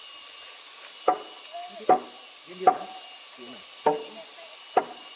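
A tool striking wood five times, sharp knocks less than a second apart, each with a short ringing tail, over a steady background hiss.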